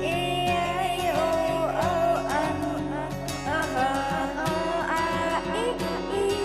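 Instrumental intro music: a gliding lead melody over a steady accompaniment.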